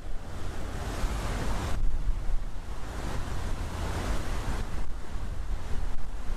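Rushing sea surf and wind: a steady noise with a low rumble that swells up about a second in and again around four seconds in.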